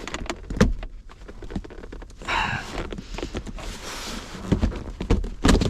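Plastic interior trim panel being pulled loose by hand: scattered clicks and knocks of plastic and its retaining clips, with a short rustling scrape about two seconds in.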